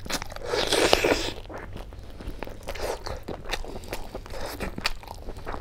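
A man biting into a fried chicken piece and chewing it, crunching loudest about half a second to a second and a half in, then a string of small wet chewing clicks and smacks.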